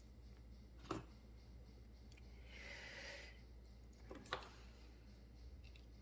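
Near silence: quiet room tone with two small sharp clicks from handling the wire and hand tools, one about a second in and one past the middle, and a soft breath-like hiss in between.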